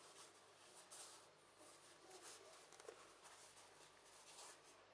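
Faint rustling and scuffing of the Fox Launch Pro D30 elbow pads' mesh fabric and padding as they are handled and flexed by hand, in soft swishes every second or so with a small tick near the middle.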